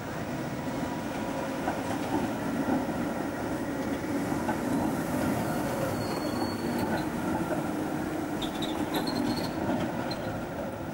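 Articulated electric tram passing close by on street track, its wheels running on the rails, with a few short high wheel squeals in the second half.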